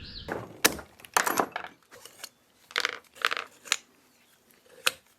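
Short metallic clinks and knocks, with a few brief scrapes, from parts and tools being handled while a hydraulic cylinder is taken apart. Sharp clinks come about half a second in, just after a second, and near the end, with scraping between them.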